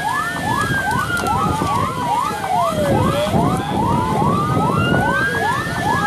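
Two emergency-vehicle sirens sounding together: one in a fast repeating yelp, about two to three rising sweeps a second, the other a slow wail that rises, falls about halfway through and rises again. A steady low rumble lies beneath them.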